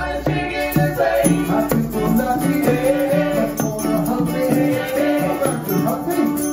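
Live Latin-style number: hand-played bongos and a shaken maraca keep a rhythm under wordless sung vocal harmony with a repeating bass line.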